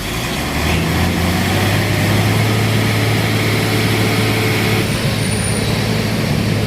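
A heavy vehicle's engine running with a low, steady hum, swelling over the first second and then holding even.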